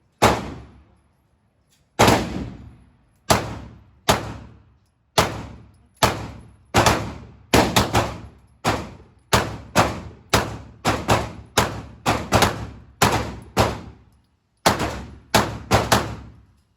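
Handgun shots echoing in an indoor range: about thirty sharp reports in quick, uneven succession, sometimes two close together, each with a short echoing tail.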